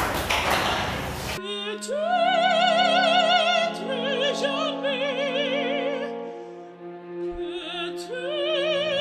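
Operatic singing: a high voice holding long notes with a wide vibrato over sustained chords. It cuts in abruptly about a second and a half in, after a short burst of noisy sound, and fades briefly about seven seconds in before coming back.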